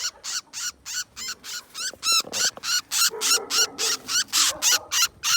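Fantail chirping in rapid alarm, a fast even run of short, sharp high calls about five or six a second, typical of a captured small bird in distress.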